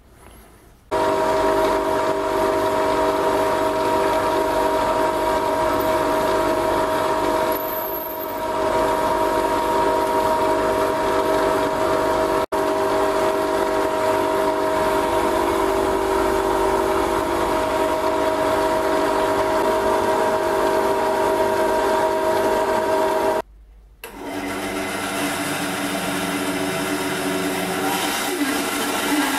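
Benchtop drill press motor running steadily with a whine, drilling a wooden dowel, with a few brief breaks. Near the end it stops suddenly and a band saw runs, cutting the dowel.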